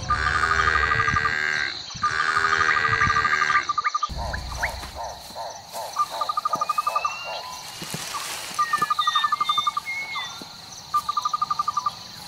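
Bush insects and birds: loud trills of rapid pulses repeating every second or two over a steady high insect whine, with a few short bird chirps in the second half. The sound changes abruptly about four seconds in.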